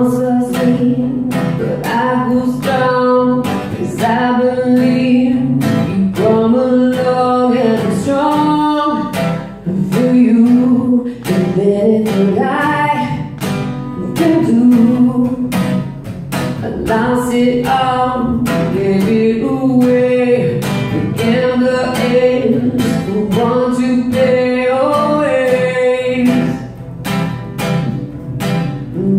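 A solo singer accompanying themself on a steadily strummed acoustic guitar, singing a slow melody.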